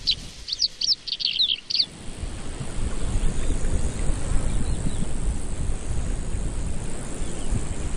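Small birds chirping in quick sweeping calls for about the first two seconds. Then a steady low rushing noise takes over and is the loudest sound.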